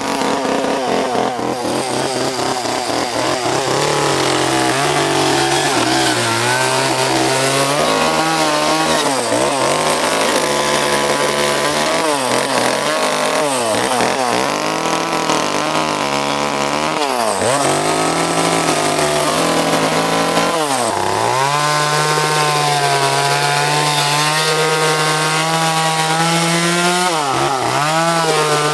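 Echo chainsaw running and cutting into a wooden slab to carve out a fish shape. The engine speed drops sharply and picks back up repeatedly as the throttle is eased and squeezed between cuts.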